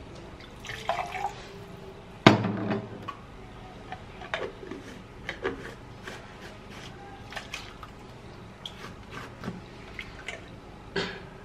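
Small plastic blender jar and its screw-on blade base being handled: scattered light clicks and knocks of plastic, one louder knock about two seconds in, with wet pulp and liquid dripping and sloshing inside the jar.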